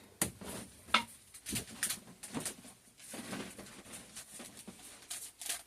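Scattered light clicks, taps and knocks of soap-making containers and utensils being handled and set down, a dozen or so at uneven intervals.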